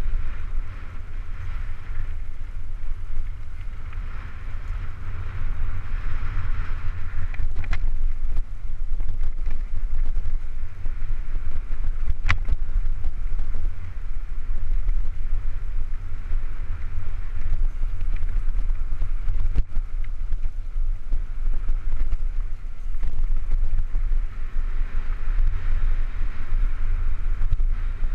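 Mountain bike descending fast on a dirt trail: heavy wind buffeting on the microphone over the steady rumble of tyres on dirt, with a sharp knock about twelve seconds in.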